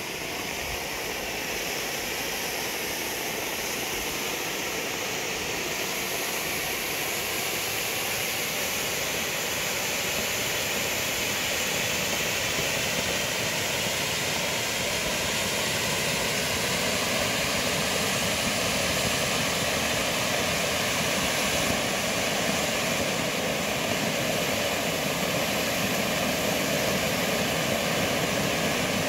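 Two Bugano/Zink firework fountains, a No5 gold with blue stars and a No6 silver, burning side by side with a steady hiss of spraying sparks that slowly grows louder.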